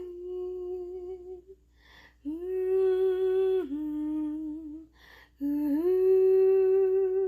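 A solo voice singing wordless, humming-like held notes in three slow phrases, with a step down in pitch partway through the second phrase and a rise into a long held note in the last. Quick breaths can be heard between the phrases.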